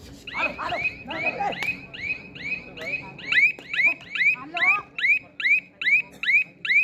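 A high, alarm-like chirp repeated evenly about two and a half times a second, each chirp rising sharply then levelling, growing much louder about halfway through. Men's voices are heard briefly near the start.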